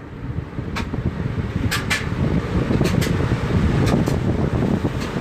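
Cool-Breeze chrome floor fan switched on and spinning up, the rush of its air growing louder over the first couple of seconds and then holding steady, with a few faint ticks about once a second.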